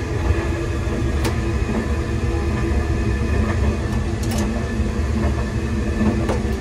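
Steady running rumble of the Spacia X electric express train, heard from inside a small compartment on board. A few light clicks come through it as a fold-down plastic baby changing table is handled and lowered.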